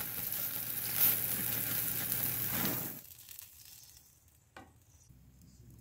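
Burger patties sizzling on a grill over open flame, a steady hiss that cuts off abruptly about three seconds in. A single light tap follows.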